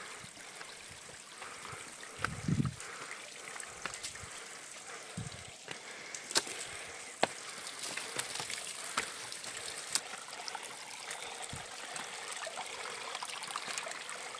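Small mountain spring trickling over stone ledges into a shallow rocky stream, a steady gurgling trickle. A few sharp clicks and brief low thumps sound over it.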